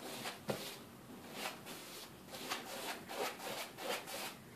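An old paintbrush, carrying little paint, scrubbed in quick, irregular strokes over a textured wall: the bristles rub the rough surface as a thin coat of yellow paint is brushed on.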